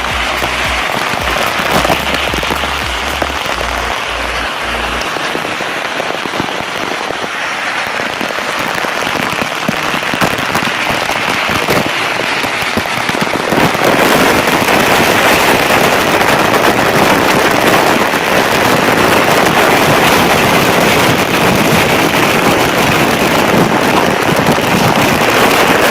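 Loud, steady rush of a waterfall and fast-flowing stream, growing louder about halfway through.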